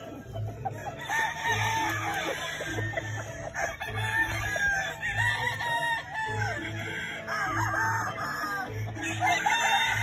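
Several gamefowl roosters crowing and clucking, calls overlapping one after another, over background music with a steady low beat.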